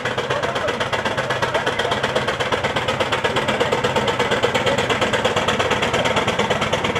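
4-inch scale Fowler traction engine under way, its steam exhaust chuffing in a fast, even beat of about seven a second.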